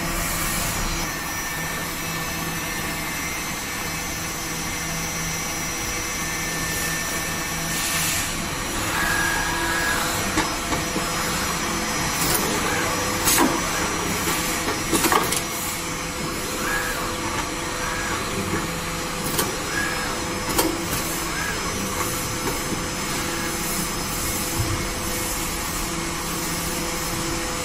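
Makeup sponge (beauty blender) production machine running with a steady mechanical hum and a constant tone. Scattered sharp clicks and knocks come through it, most of them near the middle.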